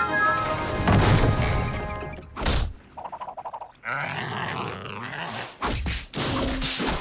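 Cartoon score with slapstick sound effects: music for the first two seconds or so, then a sharp hit, a quick rattling run of about ten pulses a second, a wavering noisy sound and a few sharp knocks near the end.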